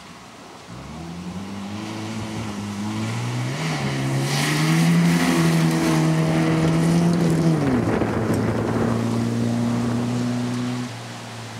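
Rally car engine under hard acceleration: the revs climb over the first few seconds and hold high. They drop sharply about eight seconds in, then run steady at a lower pitch before falling quieter near the end.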